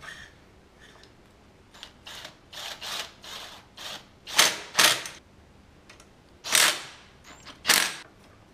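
Cordless drill-driver running in about nine short bursts on the screws of a Honda Cub engine's clutch cover; the last four bursts are the loudest.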